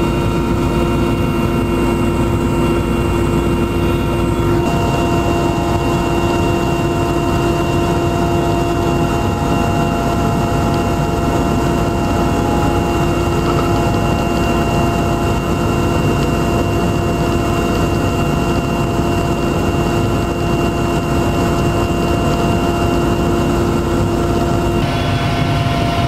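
Aircraft engine drone heard from inside the cabin: a loud, even noise with several steady humming tones. The tones shift slightly about four seconds in and again near the end.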